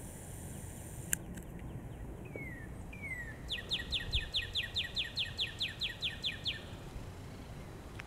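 A songbird singing: two slower down-slurred whistles, then a fast run of short down-slurred notes, about six a second for some three seconds. A sharp click about a second in, over a low steady rumble.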